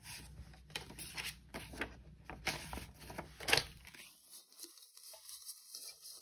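Paper banknotes rustling and flicking as they are handled and counted, a string of short dry paper sounds. A faint low hum stops about four seconds in.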